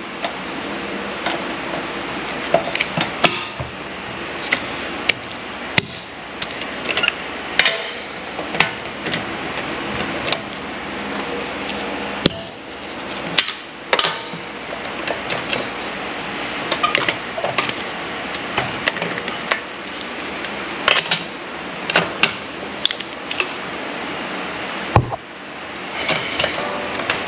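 Lug nuts being snugged down with a long-handled socket wrench on an extension: scattered sharp metallic clicks and clinks of the wrench, socket and nuts, some in short runs, over a steady background hiss.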